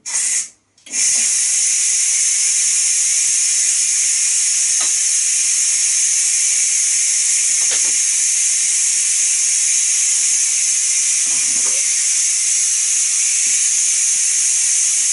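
Ninja Foodi pressure cooker's release valve venting steam, opened by hand to let the pressure out at the end of a pressure-cook cycle: a short burst, a break of a fraction of a second, then a steady, loud hiss.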